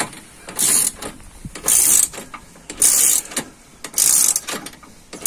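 Ratchet bar turning the drive screw of a heavy-duty multi-stage scissor jack as it lifts a vehicle. Short bursts of rapid ratchet clicking come about once a second, four times, with fainter clicks between.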